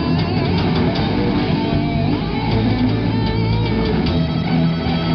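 Live rock band playing, electric guitars and bass guitar at the front, loud and steady.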